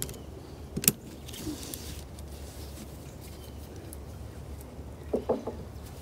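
Ratchet tie-down strap being released on a wooden beehive. The metal ratchet buckle gives a sharp click about a second in, and near the end there are a few more clicks and short scrapes as the strap is worked loose, over a steady low hum.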